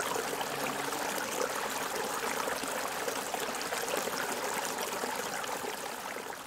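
Shallow stream running over stones: a steady rush and trickle of water that fades out near the end.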